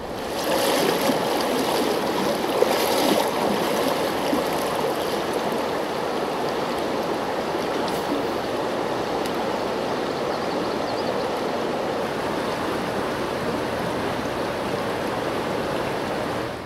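Steady rush and gurgle of river water flowing right by a camera set at the water's surface, a little louder in the first few seconds.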